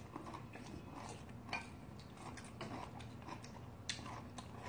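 Quiet eating of bean sprout rice soup: scattered soft clicks and smacks of spoons, mouths and chewing.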